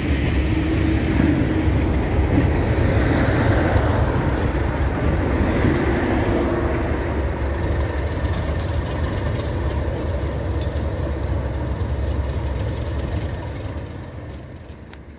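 Diesel-hauled passenger train passing close by: coaches rolling over the rails in a continuous rumble, followed by the Class 37 diesel locomotive on the rear going past. The sound fades away about thirteen seconds in.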